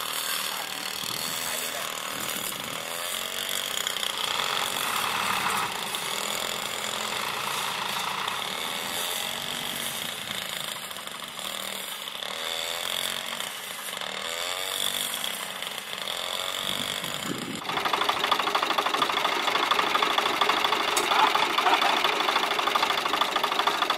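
Farm tractor's diesel engine working to free the tractor from mud, its revs rising and falling. About two-thirds of the way through it cuts to a closer, louder view of the engine running with a rapid knocking rattle.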